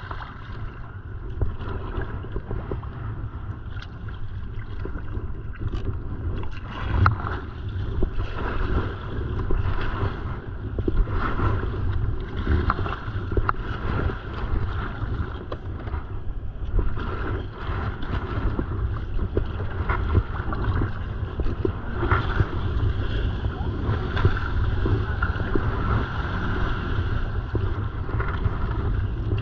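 Wind buffeting the camera microphone with a steady low rumble, over the splash of kayak paddle blades dipping and pulling through choppy lake water and small waves lapping the hull.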